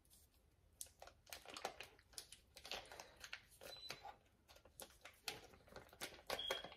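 Paper butter wrappers crinkling and tearing as sticks of butter are peeled open by hand: a faint, irregular run of crackles starting about a second in.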